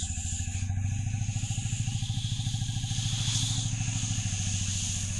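A low drone pulsing fast and evenly, with a steady hiss above it, from the sound backing of a recorded sound-poetry piece.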